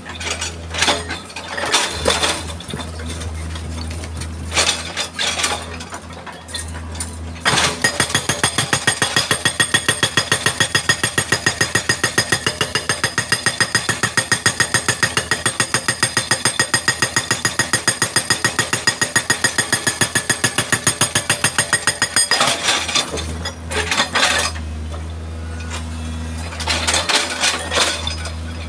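Excavator-mounted hydraulic rock breaker on boulders, over the excavator's diesel engine running. For the first several seconds there are only scattered clinks of the chisel on rock, then the breaker hammers at a rapid, even rate for about fifteen seconds and stops, leaving the engine running with a few more clinks.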